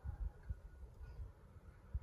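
Wind buffeting the microphone in a snowstorm: an uneven low rumble with gusty surges.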